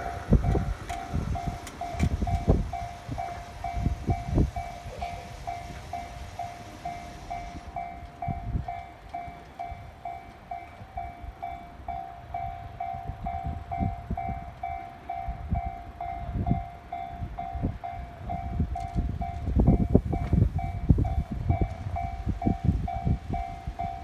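Japanese railway level-crossing warning bell ringing, an even repeating electronic ding of about two strokes a second, sounding while the barrier is down. Gusts of wind buffet the microphone underneath it.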